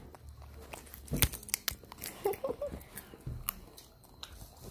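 Handling noise on a phone's microphone: scattered clicks, knocks and rubbing, the loudest about a second in.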